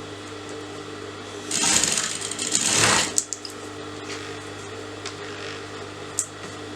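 Electric sewing machine stitching a seam in one fast run of about a second and a half, starting about a second and a half in, then stopping. A few light clicks follow.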